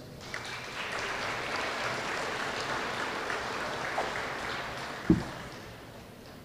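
Audience applauding, dying away over the last second or two, with a single thump about five seconds in.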